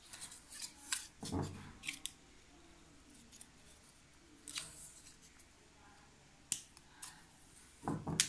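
Scattered light clicks and clacks of a popsicle-stick butterfly knife being handled, its wooden handles swinging and tapping, at irregular times with a couple of duller knocks, one about a second in and one near the end.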